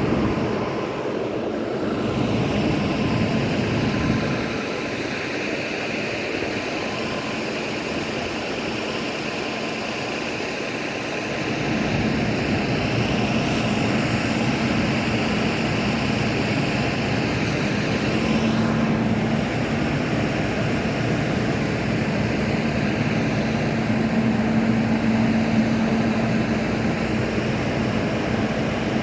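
A steady mechanical drone with a low, even hum, dipping a little in the lower range for several seconds early on.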